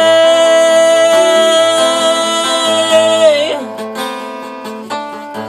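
A man singing one long held note over a strummed acoustic guitar. The note bends down and drops away a little past three seconds in, and the guitar carries on alone, strummed and getting quieter.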